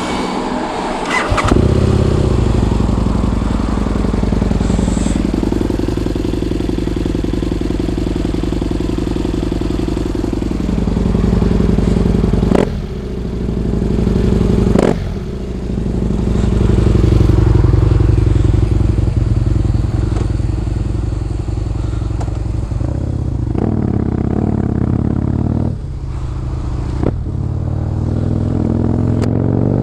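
Husqvarna Nuda 900R's parallel-twin engine running while the bike is ridden, the revs holding and shifting with a few brief dips in the engine note, then climbing near the end.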